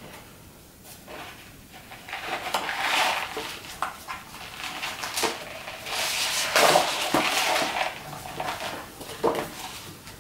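Large sheets of paper rustling and crinkling as a page of an oversized booklet is turned and the booklet is handled and turned over, with a few sharp taps and knocks against the wooden floor.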